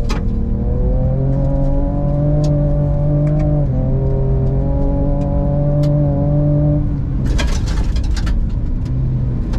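In-cabin sound of the Ford Ranger Raptor's twin-turbo V6 under hard acceleration. The engine note climbs steadily, drops once about four seconds in as the gearbox upshifts, then climbs again. About seven seconds in the note falls away into a second or so of loud rushing noise before the engine returns at a lower pitch.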